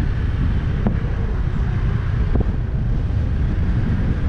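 Wind buffeting the microphone while riding a motorcycle, a steady low rumble with the bike's running sound underneath.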